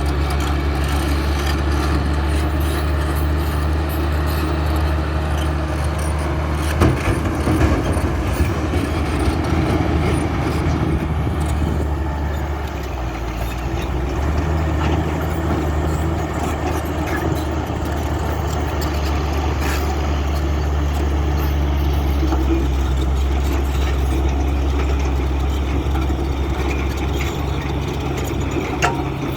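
Diesel engines of heavy earthmoving machinery running steadily with a low drone. A few sharp knocks come about seven to eight seconds in.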